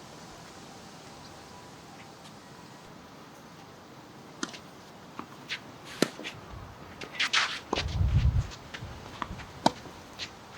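Tennis court sounds in the wind: a steady wind hiss, then from about four seconds in, scattered sharp knocks and footsteps on the court. A brief low rumble of wind on the microphone comes near eight seconds in.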